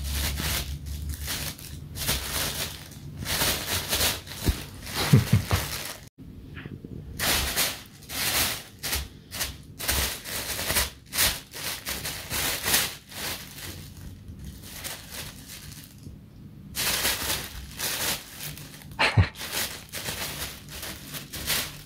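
Plastic bag rustling and crinkling as a cat moves about in it, in bouts broken by short pauses.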